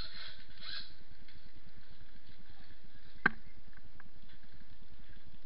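Steady low rumbling background noise on the microphone, with one sharp click about three seconds in, the loudest sound, and a much fainter click about a second later.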